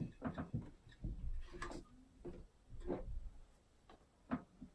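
Hand caulking gun clicking and ticking as its trigger is squeezed to lay a thin bead of caulk along a tile seam: a quiet run of short, irregular clicks.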